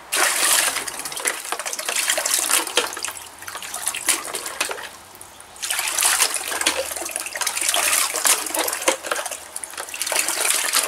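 Water gushing and splashing in two long spells, with a break of about a second near the middle.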